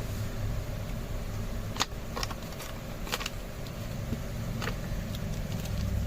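Hands taking accessories out of a phone box: a few sharp clicks and taps from the packaging, the loudest about two seconds in and a close pair about three seconds in. A steady low hum runs underneath.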